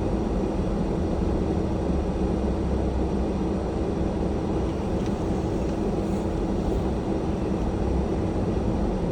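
A car driving slowly over a snow- and ice-covered road: steady engine hum with one constant low tone, over the rumble of the tyres.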